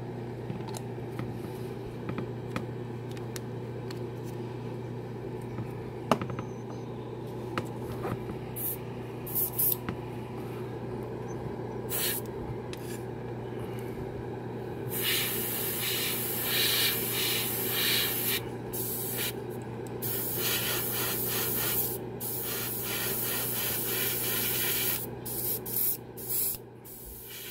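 Steady hum of an airbrush compressor. From about halfway, air hisses from the airbrush in bursts that stop and start several times.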